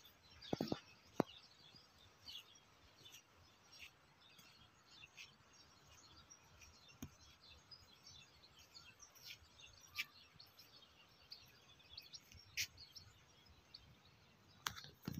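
Faint, scattered bird chirps over a quiet background, with a few sharp clicks in the first second or so.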